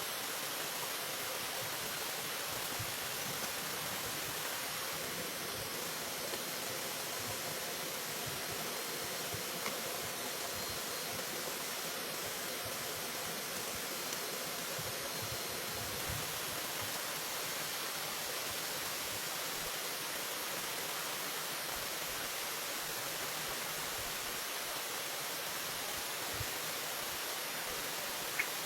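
Steady rushing of running water, even throughout, with a couple of faint ticks.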